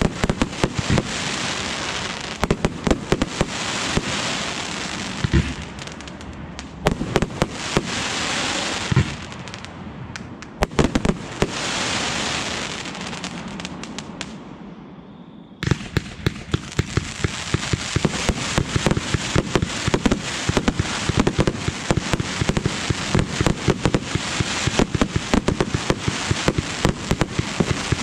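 Aerial fireworks display: shells bursting with a steady run of sharp bangs and pops. About halfway through the sound fades and cuts off suddenly, then comes back as a denser, faster volley of pops.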